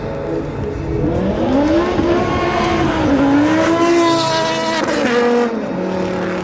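A car engine revving hard as the car accelerates past: the pitch climbs about a second in, holds high with a brief dip, then drops away near the end.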